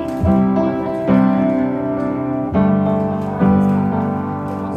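Background music: an instrumental stretch of a piano-led pop song, with chords struck roughly once a second and no singing.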